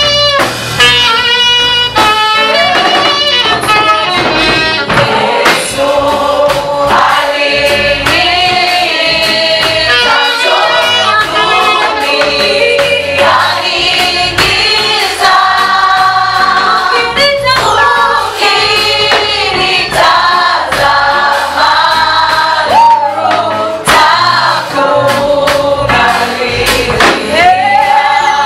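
Choir singing a Swahili hymn (tenzi) in gospel style, the voices held on long sung notes that change pitch every second or so.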